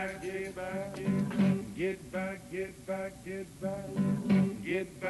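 Acoustic blues guitar playing an instrumental fill between sung lines: single picked notes at about two or three a second, many bent upward in pitch.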